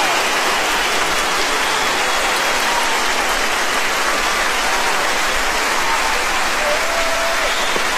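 Large concert audience applauding steadily and loudly, a dense, even clapping.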